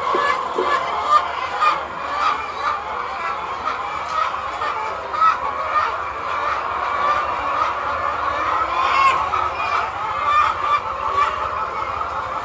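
A large flock of layer hens calling all at once: a steady, dense din of many overlapping clucks.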